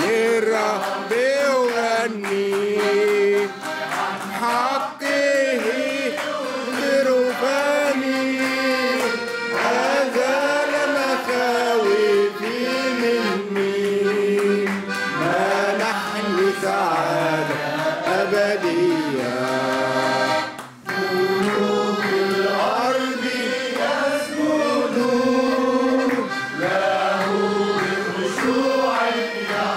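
Arabic hymn sung by a solo voice with accordion accompaniment, with a brief break in the sound about two-thirds of the way through.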